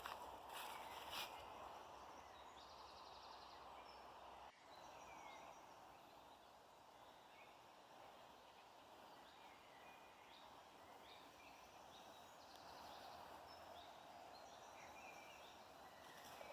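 Faint songbirds chirping, with a few short trills, over a quiet steady outdoor hiss. A sudden break about four and a half seconds in sounds like an edit in the recording.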